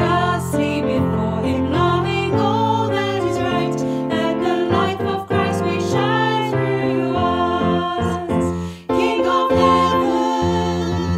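Several women's voices singing a worship hymn together over a steady piano accompaniment, with a brief breath-pause about nine seconds in before the chorus begins.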